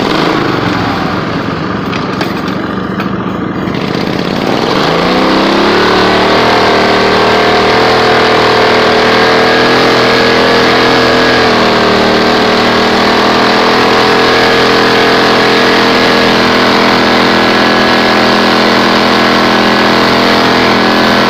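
Modified riding lawn mower engine driving through deep snow. It runs rougher and a little quieter at first, then revs up about four and a half seconds in and holds a steady high speed.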